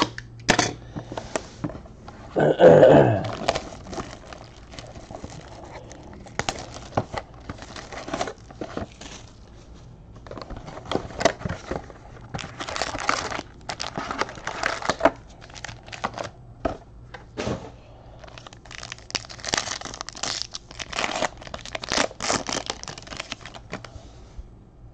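Sealed trading-card boxes and foil card packs being torn open and crinkled by hand, with cardboard and cards handled in between: irregular rustling and tearing, loudest about three seconds in.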